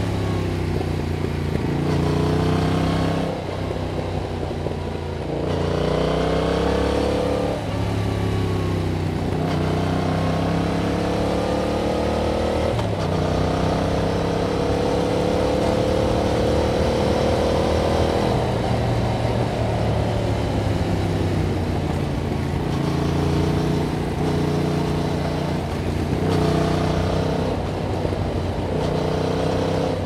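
Yamaha MT-07's parallel-twin engine through its stock exhaust, accelerating through the gears: the revs climb, drop sharply at each shift, then climb again, with one long climb in the middle before they fall back and rise in shorter pulls near the end.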